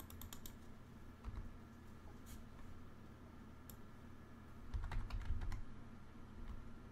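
Computer keyboard typing: a few scattered keystrokes, then a quick run of keystrokes about five seconds in.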